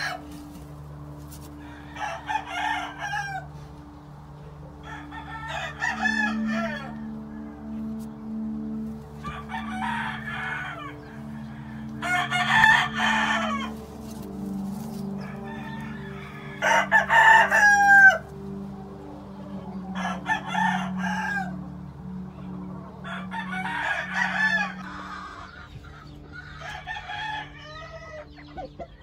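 Game roosters crowing, about eight calls a couple of seconds apart.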